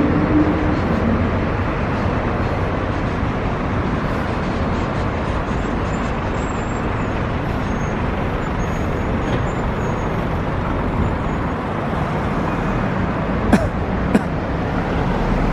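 Steady open-air street noise with a low traffic hum from the nearby road. Two sharp clicks sound about half a second apart near the end.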